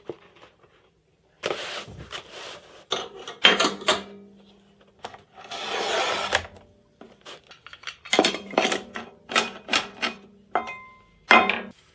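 Handling noises from a plastic paper trimmer and a metal mitre fence: scattered clicks and knocks, with a longer sliding rasp about halfway through as the trimmer's cutting head runs along its rail.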